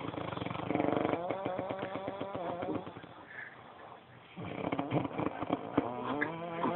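Loud snoring: two long, rattling snores, the first at the start and the second beginning about four and a half seconds in.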